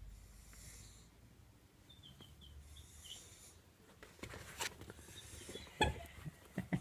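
Mice: a quick run of short, high squeaks about two seconds in, then scratching and rustling with sharp clicks.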